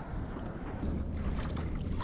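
Wind buffeting the microphone over open water, with small waves lapping and splashing against a kayak's hull from about a second in.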